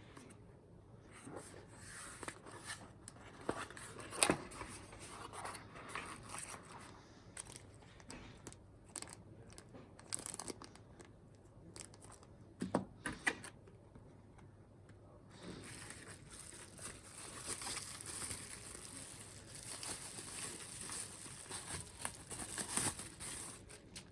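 Packaging crinkling and tearing, with scattered clicks and taps of small parts being handled; a steadier rustle in the second half.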